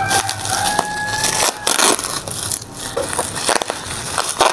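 Plastic bubble wrap crinkling and crackling as hands squeeze and pull at it to unwrap a package, with many sharp irregular crackles.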